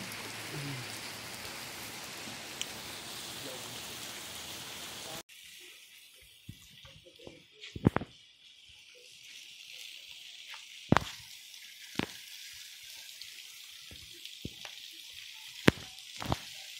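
Heavy rain falling on a paved street, a steady hiss. About five seconds in it changes suddenly to a thinner, higher hiss of rain. Several loud, sharp taps of drops landing close by stand out, two of them in quick succession near the middle.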